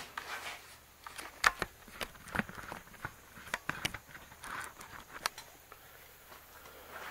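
Handling noise of a camera being picked up and carried: a string of sharp clicks and knocks with rustling between them, the loudest knock about a second and a half in.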